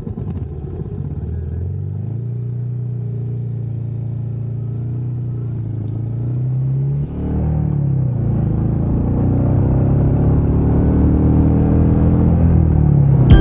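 A motor vehicle's engine running and accelerating, its pitch climbing, with a short drop in pitch and level about seven seconds in, then climbing and getting louder again.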